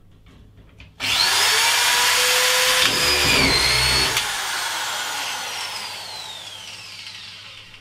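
Metabo SE 4000 corded drywall screwdriver with a collated screw magazine switching on about a second in and driving a screw into an OSB board, with a sharp click or two as the screw seats. The motor then whines down in falling pitch as it coasts to a stop.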